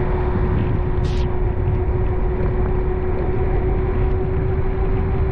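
Car driving, heard from inside: a steady low road and engine rumble with a steady hum running through it. A short hiss about a second in.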